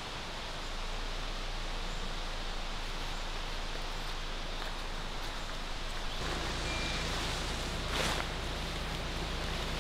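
Steady outdoor forest ambience: an even rushing noise. A short high chirp comes about seven seconds in and a brief knock about eight seconds in.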